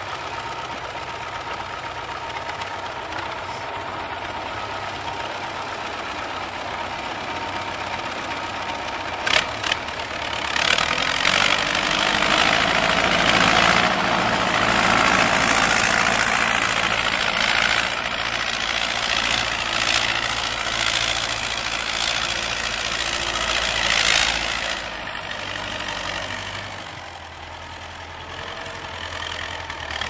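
Belarus MTZ-50 tractor's four-cylinder diesel engine running under load as it pulls a plough. It grows louder about a third of the way in as the tractor comes close, then fades near the end as it moves away down the field.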